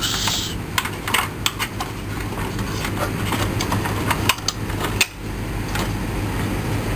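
Irregular light clicks and taps of a plastic 1:18-scale toy armoured vehicle being handled, over a steady low hum.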